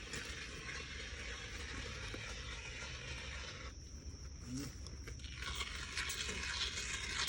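Steady hiss of a foam adhesive gun dispensing a bead. It cuts off for about a second and a half midway, then starts again.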